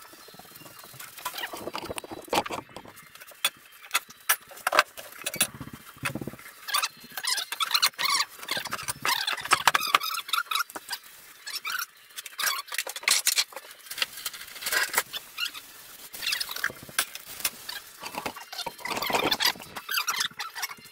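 Irregular clicks, knocks and short squeaky rubbing sounds of hands working around a bandsaw and rough old barn-wood beams.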